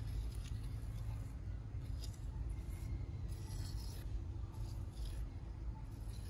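Small trowel scraping and smoothing wet cement in pot moulds: a series of short, soft scraping strokes, over a steady low rumble.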